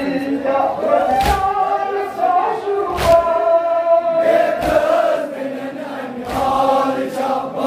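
A crowd of men chanting a Kashmiri noha, a Shia lament, together in unison. Four evenly spaced heavy slaps land under two seconds apart: the mourners striking their chests together (matam) in time with the chant.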